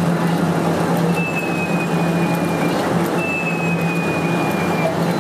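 Prize claw machine running as its claw moves down onto a plush toy: a steady mechanical hum with a noisy whirr, and two long, slightly falling high tones, about a second in and again about three seconds in.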